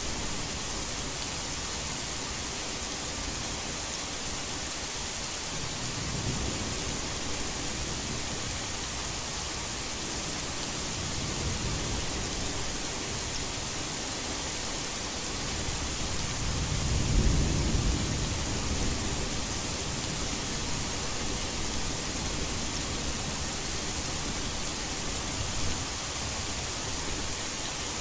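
Heavy rain as a steady hiss, with low thunder rumbling in now and then: a faint roll about six seconds in, another near the middle, and the loudest one a little past halfway.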